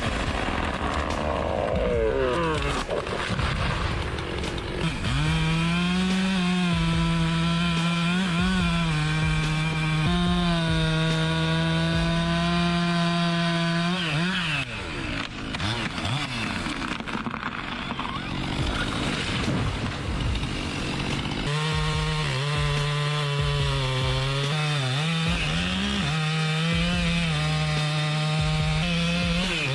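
Chainsaw cutting wood at full throttle, its high engine note wavering and dipping as it loads up in the cut. The engine note falls away twice, once near the start and for several seconds around the middle, before revving back up.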